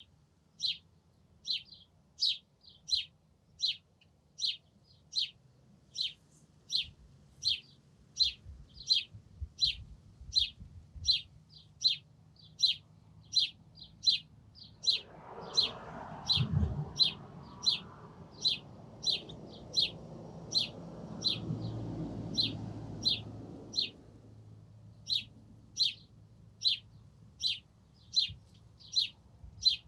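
A small bird repeats a short, high chirp over and over, about three every two seconds. Halfway through, a car passes: a rushing tyre and engine noise that swells and fades over about nine seconds.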